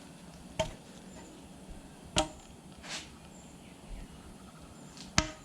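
Three sharp metallic clinks of metal engine parts being set down or knocked together, each with a short ring. There is a softer scrape or rustle between the second and third.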